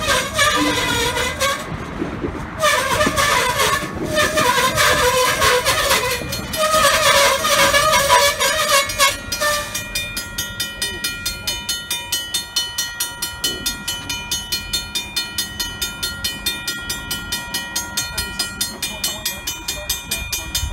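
Covered hopper cars of a slow freight train rolling past, with a wavering squeal over the first half. From about ten seconds in, a grade-crossing bell rings in steady, evenly spaced strokes, roughly two to three a second, over the rolling train.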